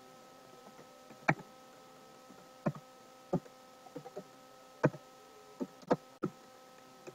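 Computer keyboard typing: about ten separate key clicks at uneven spacing over a faint steady electrical hum.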